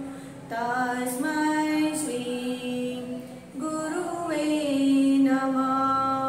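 A woman's solo voice singing a Sanskrit prayer chant without accompaniment, in slow, long-held notes that step up and down in pitch, with two short breaks for breath.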